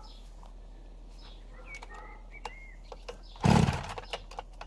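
Solo 611 twin-cylinder two-stroke chainsaw being pull-started: after a few small handling clicks, the engine fires briefly on a pull about three and a half seconds in and dies away within about half a second.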